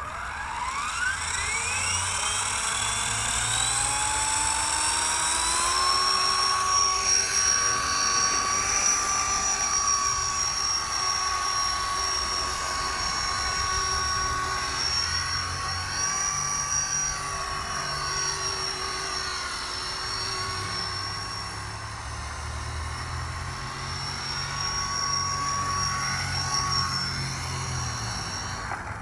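Copter X 250 electric RC helicopter: its motor and rotors spool up with a steeply rising whine over the first few seconds, then hold a steady high whine in flight. The whine stops near the end.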